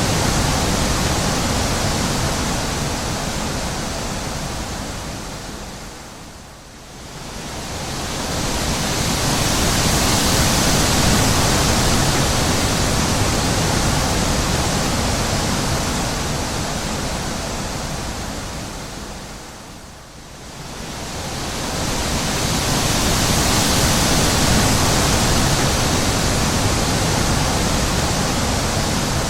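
Wind blowing: a steady rushing that dies almost away and swells back up twice, about thirteen seconds apart.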